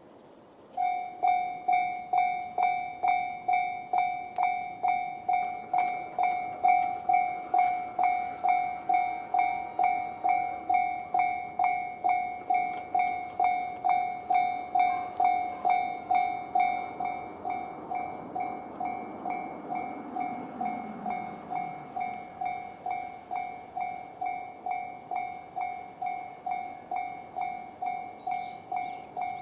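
Japanese level-crossing warning bell in the JR standard electronic tone, starting just under a second in and dinging evenly about twice a second. It drops in volume about two-thirds of the way through.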